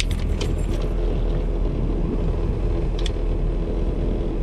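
Steady low rumble of a fishing boat's motor running on the water, with a few short clicks near the start and again about three seconds in.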